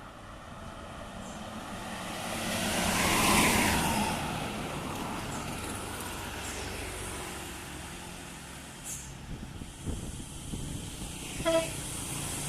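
A large road vehicle passing close by on a hill road: engine and tyre noise swell to a peak about three seconds in, the pitch dropping as it goes past, then settle to a steady traffic rumble.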